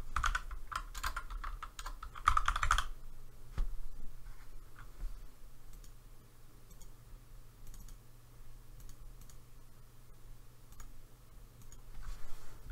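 Typing on a computer keyboard. A quick run of keystrokes fills the first three seconds or so, followed by scattered single clicks and taps, then another run of typing near the end.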